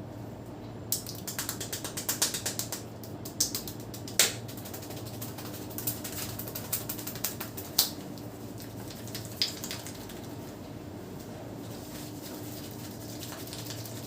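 A rapid run of sharp snapping clicks from a barber's hands working a client's head during a head massage. The clicks last about eight seconds, with the loudest snap about four seconds in, then stop, leaving only a steady low hum.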